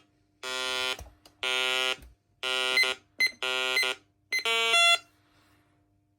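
Menvier TS510 intruder alarm panel sounding through its 16-ohm extension speaker: a harsh buzzing tone pulsed five times, each about half a second long and about a second apart. The fifth pulse is higher-pitched, and then the sounding stops.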